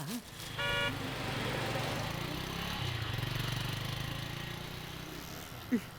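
Auto-rickshaw engine idling with a fast, even putter, with a short pitched tone about half a second in.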